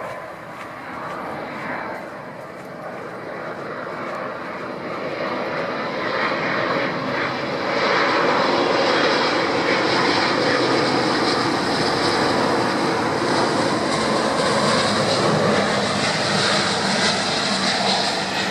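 Passenger airliner's engines, a rushing noise that grows louder over the first several seconds as the plane nears and then stays loud and steady, with a strong high hiss.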